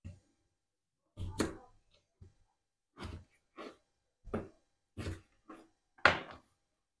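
Kitchen knife cutting raw potatoes into wedges on a wooden cutting board: about nine sharp knocks of the blade against the board at uneven intervals, the loudest near the end.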